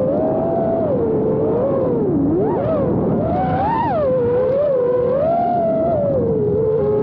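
FPV quadcopter's electric motors and propellers whining, the pitch sliding up and down constantly with the throttle, recorded by a camera mounted on the drone.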